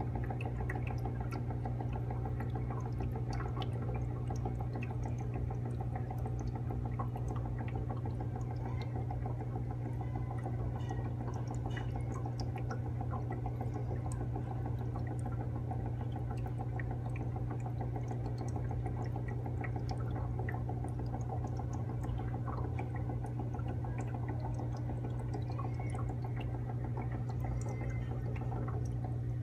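Aquarium pump or filter humming steadily, with water trickling and small drips running over the hum.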